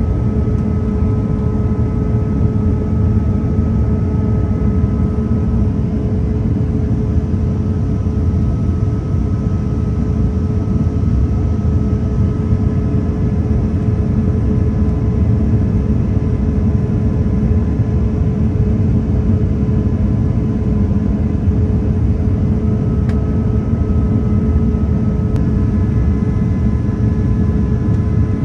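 Steady cabin noise of an Airbus A350 in flight, heard from a window seat over the wing: a loud, even low roar of its Rolls-Royce Trent XWB engines and rushing air. Over the roar run a few steady hum tones, one of which fades out after about six seconds and returns near the end.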